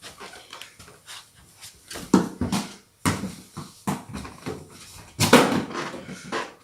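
A small football being kicked and bouncing indoors: a series of thuds, the loudest about five seconds in.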